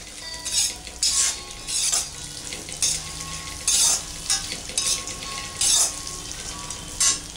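Slotted metal spatula stirring and scraping chopped cashews, almonds and pistachios around a metal kadhai as they lightly roast in a little hot ghee: irregular scraping strokes, roughly one a second, over a low sizzle.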